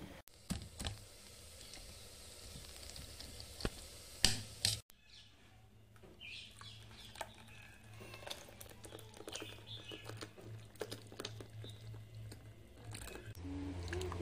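Faint kitchen handling sounds: scattered clicks and knocks, the two loudest a little over four seconds in, then light tapping and scraping of a spoon in a steel bowl, over a low steady hum.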